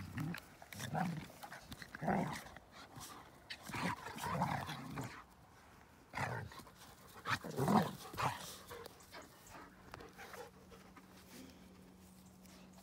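A German Shepherd and a small puppy play-fighting, their dog noises coming in short irregular bursts every second or two, then dying down after about eight seconds.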